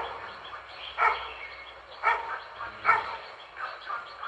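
A dog barking repeatedly, roughly one bark a second, with a couple of weaker barks between the louder ones near the end.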